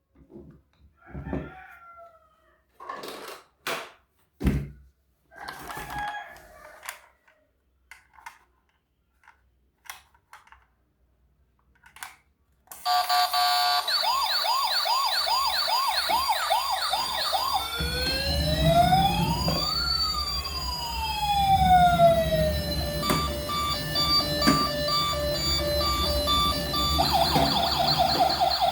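Scattered clicks and rustles of handling, then about 13 seconds in, electronic emergency-vehicle siren sounds from toy police car and ambulance models start loudly. A fast repeating yelp gives way to two wailing sirens rising and falling over each other, then a steady on-off tone and a fast warble near the end, with a low rumble underneath from about 18 seconds in.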